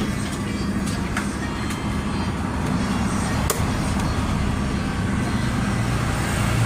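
Motorcycle engine running steadily, with a constant low hum and a couple of sharp clicks. The engine is being checked for a knocking noise.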